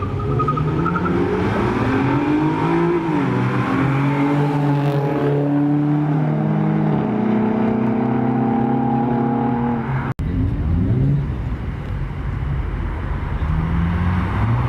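A car engine accelerating hard through the gears, its pitch climbing and then dropping at each shift, four shifts in quick succession. The sound cuts out for an instant about two-thirds of the way through, and another run of revving follows.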